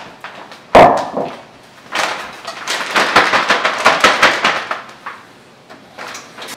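A sharp thump just under a second in, then a plastic sandwich bag crinkling and rustling for about three seconds as it is handled with cornstarch and water poured into it.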